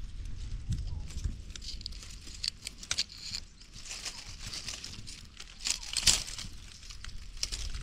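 Dry leaves and twigs rustling and crackling in irregular bursts, loudest about six seconds in, as they are handled or stepped on.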